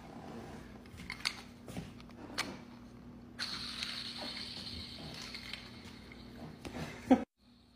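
Light clicks and rustling as a 3D-printed plastic chain is handled and settled around the neck, with a sharp knock near the end, after which the sound cuts out briefly.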